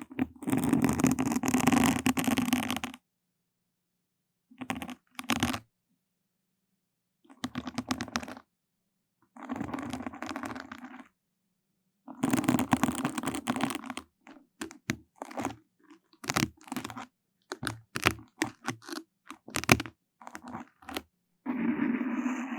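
Close-miked ASMR trigger: crackly scraping and scratching rubbed against the microphone. It comes in separate bursts with dead silence between, longer strokes in the first half and a run of short quick strokes in the second half.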